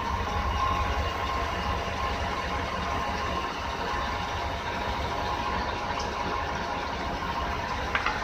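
Truck engine idling, heard from underneath at its new muffler and tailpipe: a steady low exhaust rumble, quiet through the new muffler.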